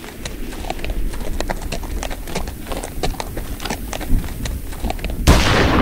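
Sound-effect horse hoofbeats, a rapid irregular patter of hooves on hard ground, then a sudden loud burst of noise near the end.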